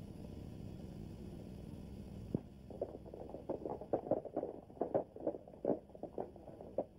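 Hoofbeats of several horses galloping up on a dirt street, an irregular clatter of strikes that starts about two and a half seconds in. Before it there is only the steady low hum of an old film soundtrack.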